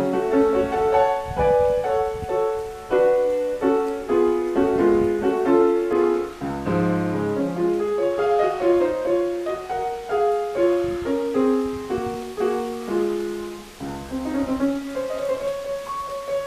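Background music: solo piano playing a Cuban classical piece, a continuous run of melody over chords.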